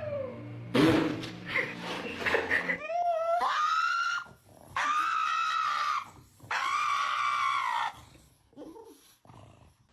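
An animal screaming: after about two seconds of noisy scuffling, one rising call and then two long, high, steady cries.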